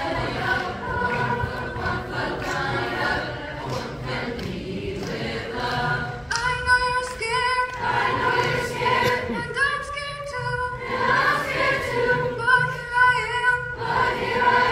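Seventh-grade school chorus singing together. From about six seconds in the voices come through louder and more distinct.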